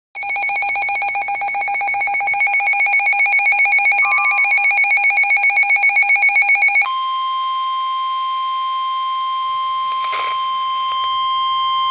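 Weather radio emergency alert for a severe thunderstorm warning. A loud electronic alarm warbles rapidly for about seven seconds, then switches abruptly to the steady single-pitch NOAA Weather Radio warning alert tone.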